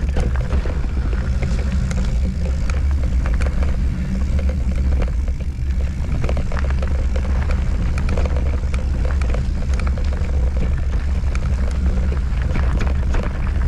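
Mountain bike rattling and clattering over a rocky trail at speed, with many quick knocks and clicks. Under it runs a steady low rumble of wind on the microphone.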